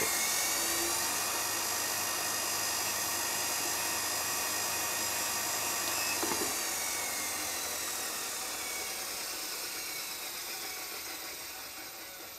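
Wooden bar rubbing against the spinning spindle of a Record Power Coronet Herald wood lathe, a steady friction hiss over the whir of its DC motor and poly-V belt. The lathe has been switched off from top speed, and the soft-stop electronics keep torque on the motor as it winds down, so the sound fades gradually with a falling whine rather than cutting off.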